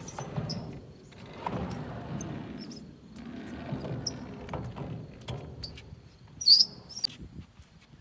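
Skateboard wheels rolling on a ramp in waves of rumble, with scattered clacks and knocks of the board. A short, loud, high-pitched squeak comes about six and a half seconds in.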